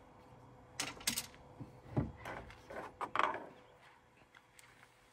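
Handling noises while camp food is prepared: a few sharp clicks about a second in, a dull thump about two seconds in, then rustling.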